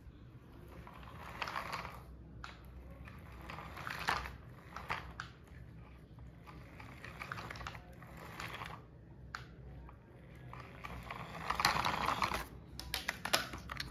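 Toy remote-control jeep driven in short spells, giving a light, clicky crackle from its small drive motor, plastic gears and tyres on the plastic sheet. It is loudest about twelve seconds in, as the car passes close.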